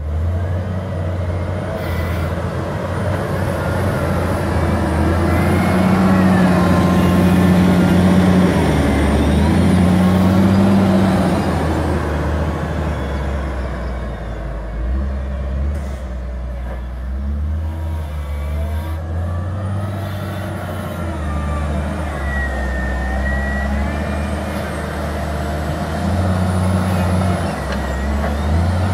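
Caterpillar wheel loader's diesel engine running under load while working sand, revving harder and louder for several seconds about a third of the way in, then settling to a steadier run.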